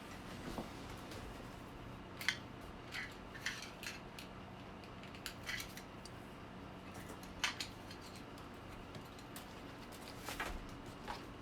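Scattered light clicks, taps and rustles of small objects being handled on a tabletop, over a faint steady hum.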